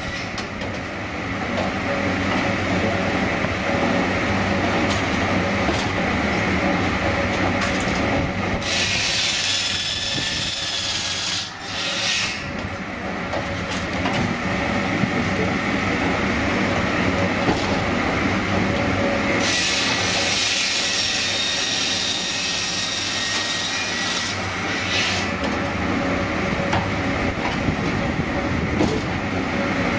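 Automatic log segment sawing machine running with a steady drone, its saw cross-cutting raw logs into short rounds. A harsher, higher cutting noise comes and goes in stretches of a few seconds as each cut is made.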